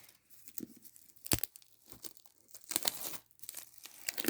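Packaging being torn off a boxed Blu-ray set: irregular tearing and crinkling, with a sharp snap a little over a second in and a burst of crackling around three seconds in.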